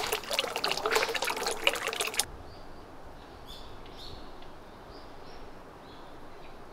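A thin stream of water pouring from a bronze dragon-head spout and splashing into a stone basin. It stops abruptly about two seconds in, leaving quiet outdoor ambience with a few faint bird chirps.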